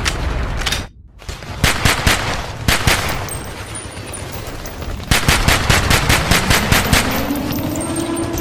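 Machine-gun fire in bursts, with a fast, even run of shots about five seconds in. Near the end a low tone rises in pitch and then holds steady.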